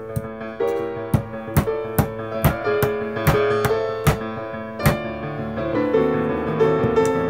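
Piano background music, with about nine sharp knocks roughly every half second from about a second in until about five seconds in: a restored Billnäs claw hammer striking a nail into a wooden board.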